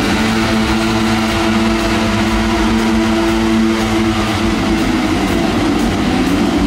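Dirt bike engine held at high, steady revs while its rear wheel spins in a smoking burnout. After about four and a half seconds the pitch wavers and turns uneven as the revs change.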